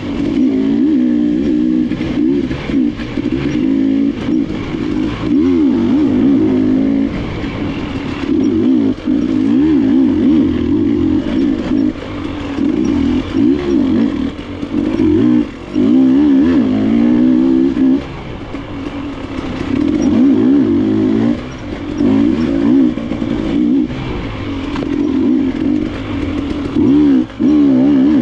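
KTM enduro dirt bike engine revving up and down constantly as the throttle is worked on and off, with a few short drops where the throttle is closed, heard from the rider's seat.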